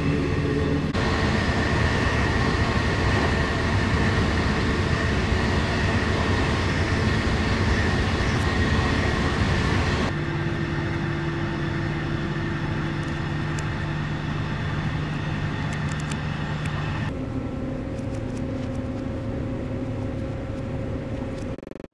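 Running noise of a moving train heard from on board: a steady rumble of wheels on the rails with a steady hum. It changes abruptly about a second in, about ten seconds in and again about seventeen seconds in.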